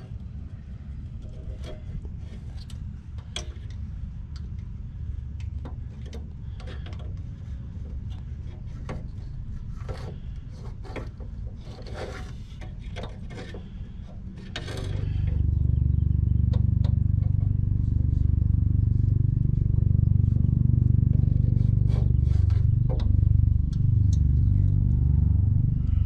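Screwdriver clicking and scraping against the metal burner tube and gas valve assembly of an Atwood RV water heater, over a low rumble. About fifteen seconds in, a much louder low, steady rumble sets in and continues.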